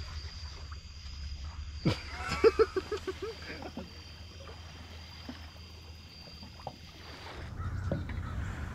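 Night insects trilling at one steady high pitch over a low rumble. About two seconds in there is a sudden knock, followed by a quick run of half a dozen short pulsed calls lasting about a second. The insect sound stops near the end, giving way to a low rushing noise.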